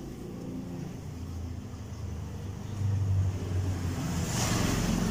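A motor vehicle's engine rumbling low, growing louder about three seconds in, with a brief rustle of cloth near the end.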